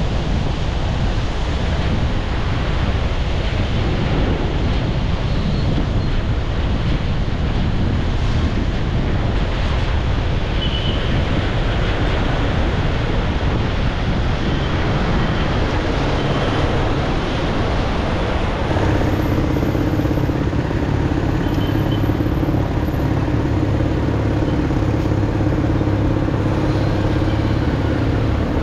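Steady rushing road and wind noise of a vehicle driving along a highway. A low, steady engine hum comes in about two-thirds of the way through.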